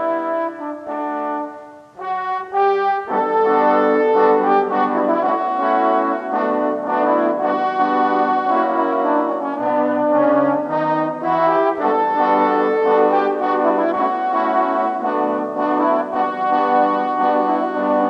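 A French horn ensemble, all parts overdubbed by one player, plays a pop-song arrangement in several-part harmony. The texture thins briefly about two seconds in, then the full group comes in.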